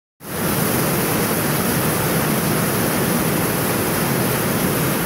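Heavy storm rain on a metal roof heard from inside the building: a loud, steady, even rushing noise, which the owner calls howling.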